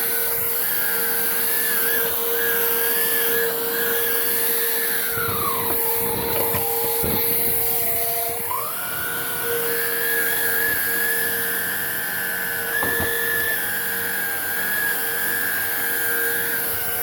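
Hoover React cordless vacuum's motor running with a steady high whine. About five seconds in, its pitch sinks for a few seconds, then rises back to full speed. A few knocks from the vacuum bumping against the surface come during the dip and again later.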